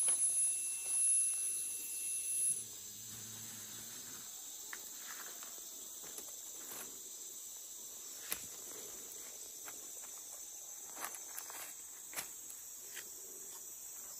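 Insects chirring in a steady high-pitched drone, one high note of it stopping about two and a half seconds in, with a few scattered light clicks.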